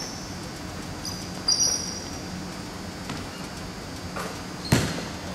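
Basketball sneakers squeak sharply on a hardwood gym floor about a second and a half in, as the shooter catches and sets. Near the end the basketball strikes once with a loud thud after his three-point shot, over a steady low hum in the hall.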